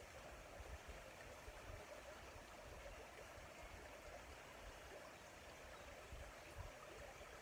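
Faint, steady rushing of a small woodland stream flowing.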